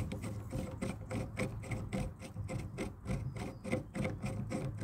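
A machine running: a steady hum with a rapid, even ticking, about five ticks a second.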